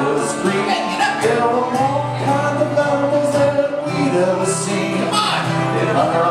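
Live Irish folk music: a fiddle playing the melody over a strummed acoustic guitar, upbeat and continuous.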